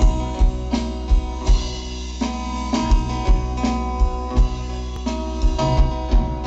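A band playing an instrumental introduction: guitar chords held over a steady drum beat.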